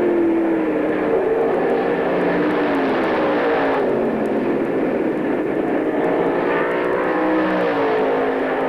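Several dirt-track race car engines running on the track, their overlapping notes rising and falling as the cars accelerate and back off through the turns.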